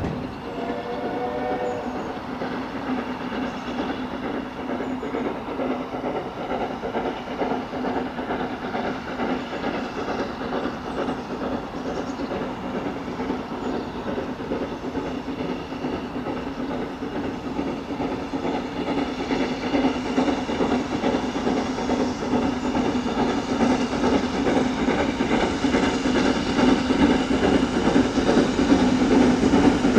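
Austerity 0-6-0 saddle tank steam locomotive 68067 hauling a train of coaches, its exhaust beats and running gear growing steadily louder as it approaches. A short whistle sounds about a second in.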